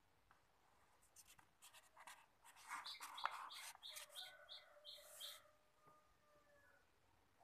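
Papery rustle of a page being turned in an old handwritten paper book. About three seconds in, a bird chirps a quick run of short high notes.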